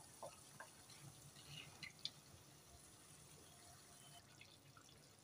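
Near silence, with a few faint clicks in the first two seconds from a wooden spoon among dry lentils in a pan.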